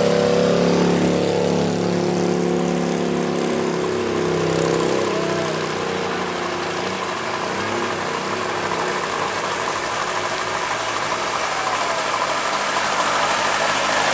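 Diesel engines of approaching trucks running steadily. A humming engine note is strongest at first and fades after a few seconds into the hiss of tyres on the wet road, which grows louder near the end as the lead dump truck draws close.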